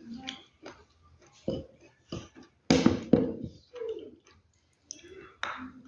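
Crunching of a dry, earthy material in short, irregular bursts, the loudest about three seconds in.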